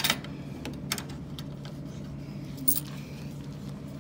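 Steady low electrical hum of a refrigerated drink vending machine, with a few light clicks and a short swish about three quarters in.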